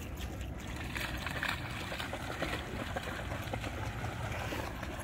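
Water splashing and lapping as an Akita plays in the water, over a steady low rumble.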